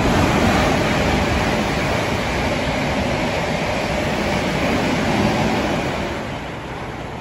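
Thameslink Class 700 electric multiple unit running through the station at speed, a steady noise of wheels on rail that fades about six seconds in as the train draws away.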